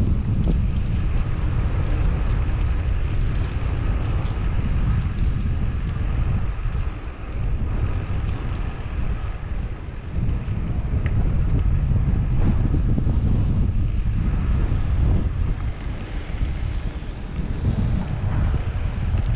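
Wind buffeting a GoPro's microphone while cycling, a steady low rumble that dips briefly about seven seconds in.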